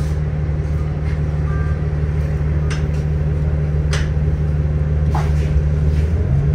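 Inside a moving city transit bus: a steady low engine and drivetrain drone, with a few sharp rattles and clicks from the cabin. The drone's pitch shifts slightly near the end.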